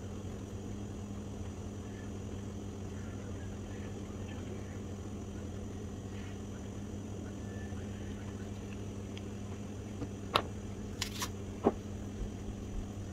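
Steady low background hum, with a few sharp light taps a little over ten seconds in, close together.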